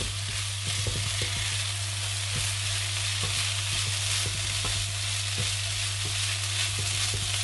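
Quinoa, mushrooms and cherry tomatoes sizzling in a non-stick frying pan while a silicone spatula stirs them, with soft scrapes of the spatula against the pan. A steady low hum runs underneath.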